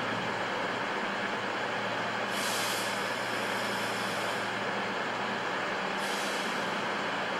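Two short hisses of compressed air from a train's air brakes, about two and a half and six seconds in, over the steady drone of a train idling at the platform.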